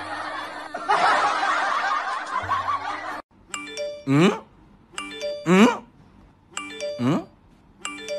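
Music with laughter over it for about three seconds. After an abrupt cut, a short edited sound clip loops four times, about every one and a half seconds: a quick run of chiming notes followed by a sliding, voice-like cry.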